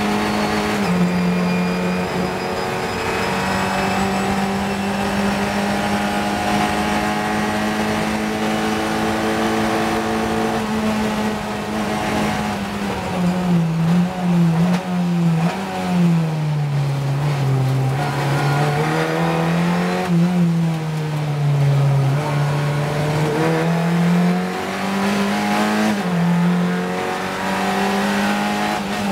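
Onboard sound of a Fun Cup race car's engine. It holds steady at high revs under full throttle for about twelve seconds. The pitch then drops and wavers as the car brakes and shifts down for a corner, and it climbs again as the throttle goes back on.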